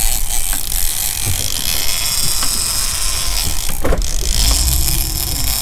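Fishing reel drag buzzing in a steady high whine as a hooked bluefin tuna pulls line, with a sharp knock about four seconds in.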